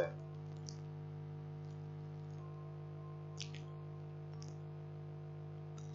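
Steady low electrical hum, with a few faint computer mouse clicks scattered through it, the clearest about three and a half seconds in.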